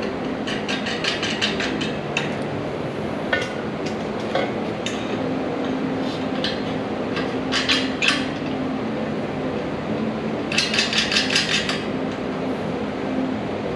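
Hammer striking steel parts, sharp metallic taps and clinks: a quick run of about eight blows near the start, single strikes and a few more in the middle, and another quick run of about eight near the end. A steady hum runs underneath.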